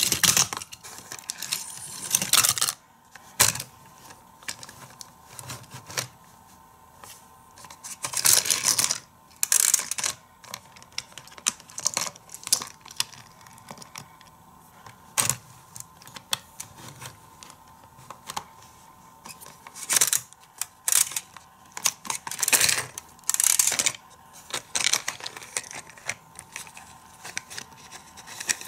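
Die-cast toy cars and a plastic Hot Wheels playset clicking and rattling: irregular sharp clicks with a few longer rattling runs, about 2, 8 and 22 to 24 seconds in.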